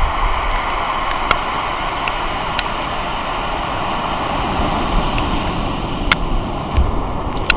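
Waves breaking and washing over a shingle beach of pebbles: a steady rushing hiss of surf with a few sharp clicks of stones, and low gusts of wind buffeting the microphone.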